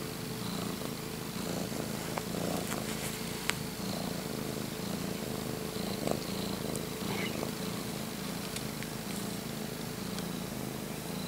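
Six-month-old calico kitten purring steadily while being stroked and scratched under the chin, a low rhythmic purr that pulses with its breathing: the kitten is content.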